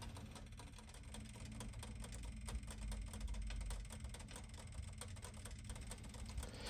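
Quiet room tone: a low steady hum with many faint, closely spaced ticks.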